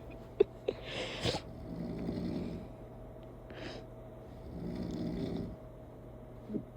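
Snoring: a low snore lasting about a second, alternating with a hissing breath, repeating about every three seconds. There are a few small clicks in between.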